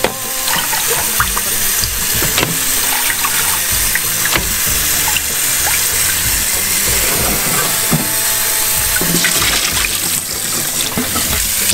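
Kitchen tap running into a bowl in a stainless steel sink while blanched pork bones are rubbed and rinsed clean by hand, with occasional knocks against the bowl.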